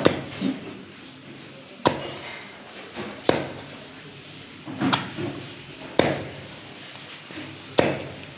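Cleaver chopping fish pieces on a wooden log chopping block: about seven sharp chops, irregularly spaced a second or two apart.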